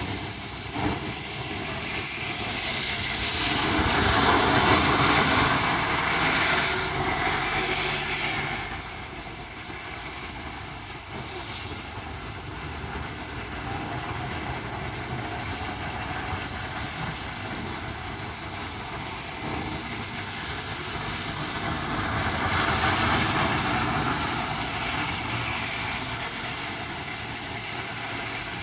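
Strong wind blowing in gusts, swelling loud twice and easing between, with a brief knock about a second in.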